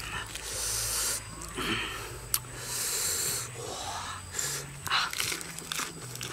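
A man eating spicy food, drawing two long hissing breaths in through his mouth, each about a second, from the chilli heat, with short mouth and chewing noises and brief vocal sounds between.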